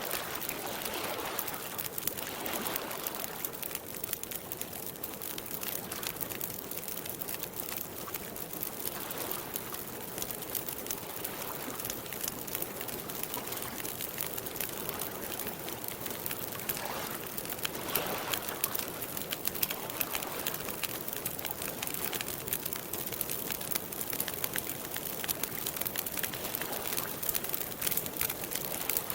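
Campfire crackling steadily with many small sharp pops, over a soft wash of lake water lapping, which swells briefly near the start and again a little past halfway.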